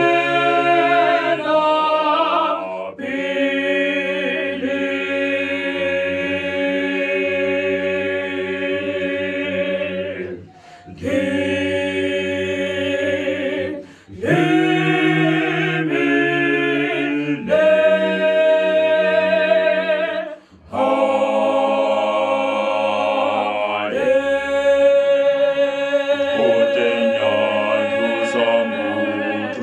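Gospel vocal group singing in close harmony without instruments: long held chords in phrases, broken by short pauses about a third of the way in, near halfway and about two-thirds in.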